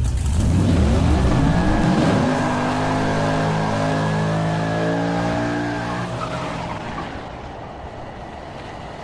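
Volkswagen 1.9 diesel engine revved up in the first couple of seconds, then its revs slowly falling away as the sound fades.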